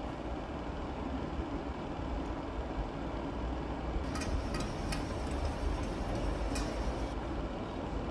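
Steady low rumbling kitchen background noise. About halfway through come a few seconds of small sharp clicks and scraping from a small knife working a white block over a stainless steel bowl.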